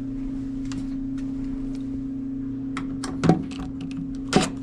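A steady low hum, with a few sharp knocks and clicks near the end as the washer's door and panel are handled.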